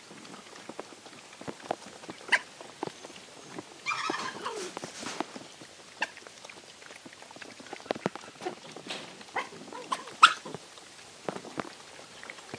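A pack of dogs eating together from a shared trough: irregular chewing, lapping and sharp clicks of teeth on food. One dog gives a brief high-pitched cry about four seconds in.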